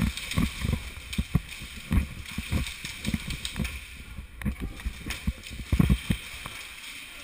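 Irregular dull low thumps and knocks, two or three a second, from movement jostling a helmet-mounted action camera, over a steady hiss.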